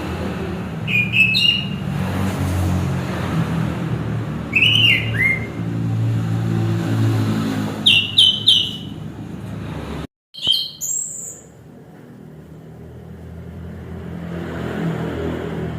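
Orange-headed thrush singing short, loud whistled phrases, about four of them a few seconds apart, over a low steady rumble like traffic. A sudden break about ten seconds in, after which the rumble is quieter.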